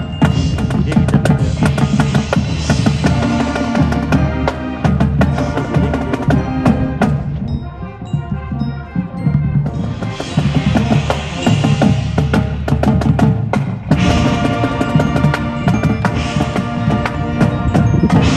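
Elementary-school marching band playing, pitched band parts over steady drum strokes, with a quieter passage about eight seconds in before the full band comes back.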